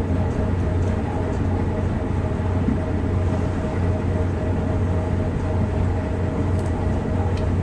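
Big-rig diesel engine idling: a steady low drone with a faint steady tone above it.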